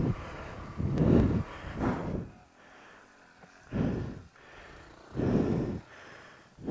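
A person breathing heavily close to the microphone: about four loud, separate breaths, a second or more apart.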